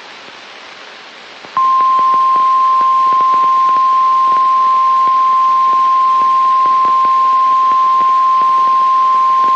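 Radio static hiss, then, about a second and a half in, a single steady high tone starts loud and holds: the 1050 Hz warning alarm tone of NOAA Weather Radio, heard over the receiver's static, signalling a tornado watch.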